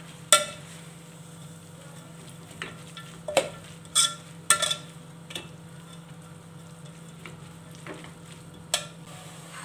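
Metal spoon stirring shredded cabbage in an aluminium pot, with about five sharp clinks of the spoon against the pot that ring briefly, over a faint sizzle and a low steady hum.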